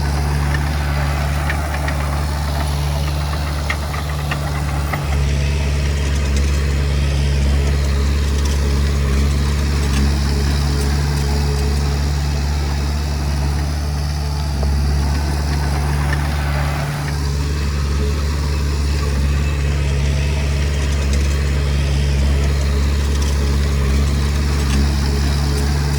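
Diesel engine of a Komatsu D20P crawler bulldozer running steadily under load, with a brief dip in the engine note about 5 seconds in and again about 17 seconds in.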